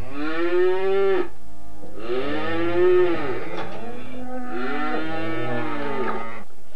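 Swedish mountain cattle (fjällkor) lowing: three long, drawn-out moos, one after another.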